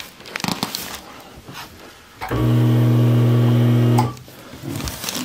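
A loud, steady electric-motor hum lasts under two seconds, starting and stopping abruptly about halfway through. Soft rustling and small clicks come before and after it.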